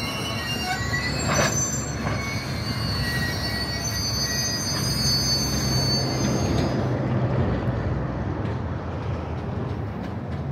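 Union Pacific maintenance-of-way freight cars rolling slowly past, their wheels squealing on the rail in several high, steady tones over a low rumble. There is one sharp clank about a second and a half in. The squeal fades out about seven seconds in, leaving the rumble of wheels on track.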